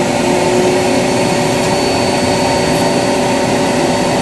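Ice cream vending machine's retrieval mechanism running during a vend, a steady motor whine with a constant hum beneath it as it carries the selected ice cream down to the delivery bin.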